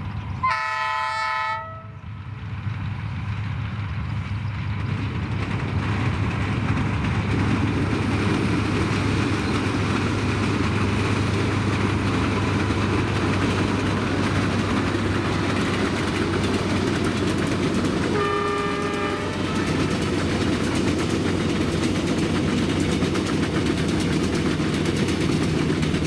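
A passing passenger train's horn gives a short blast about half a second in. The train's rumble then builds and runs steadily, with a low engine hum and wheels on rail. A second short horn blast comes near the end.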